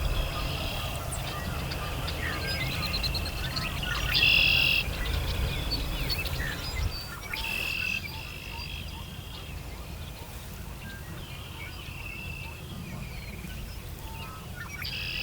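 Birds calling outdoors in spring, a call every few seconds, the loudest about four seconds in, over a steady low rumble.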